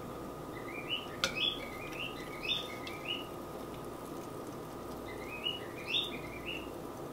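Steady hiss and faint hum of camera-microphone static, with two runs of short, high chirps, one about half a second in and one about five seconds in.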